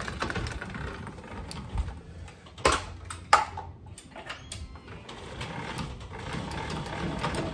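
ARK XO750 jockey wheel being wound up by its crank handle to lift the camper trailer's drawbar: the gear mechanism clicks rapidly and steadily, with two louder knocks about three seconds in.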